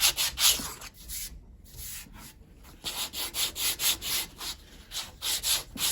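Sandpaper rubbing back and forth on the wooden handle of a cant hook in quick strokes, about three to four a second, easing off for a couple of seconds partway through: the handle is being sanded down to fit the hook's socket.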